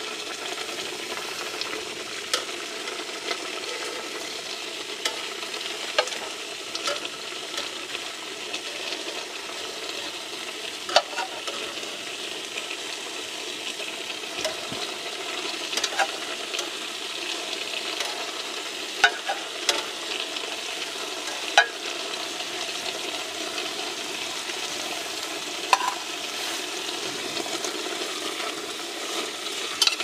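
Spaghetti and sauce sizzling in a metal pot on a hot plate as the pasta is stirred through, a steady frying hiss, with sharp clicks of the utensil against the pot every few seconds.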